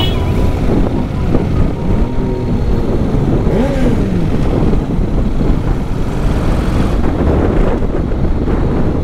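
Adventure motorcycle riding along an open road: heavy wind rush on the microphone over the running engine, with the engine pitch briefly rising and falling a couple of times in the first half.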